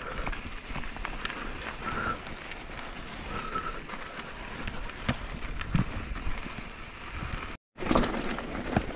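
Mountain bike riding over rough ground: steady tyre and wind noise, with frequent rattles and knocks from the bike. The sound drops out completely for a moment near the end.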